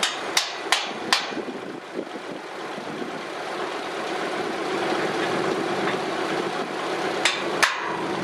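An engine idling steadily under sharp hammer blows on metal: four quick strikes at the start and two more near the end.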